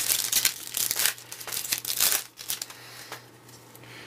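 Foil trading-card pack wrapper crinkling and tearing open in a quick, irregular run of crackles. The crackles are dense for about the first two and a half seconds and thin out after that.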